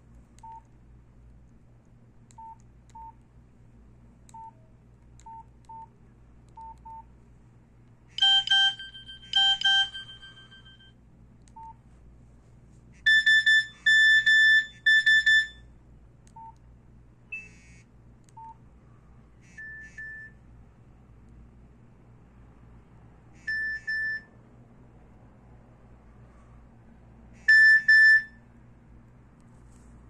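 Nokia C2-01 mobile phone beeping through its own speaker: soft short key-press beeps during the first several seconds, then electronic message-alert tones previewing. A pair of ringing chimes comes about eight seconds in, a quick run of three beeps follows a few seconds later, and shorter single beeps sound every few seconds after that.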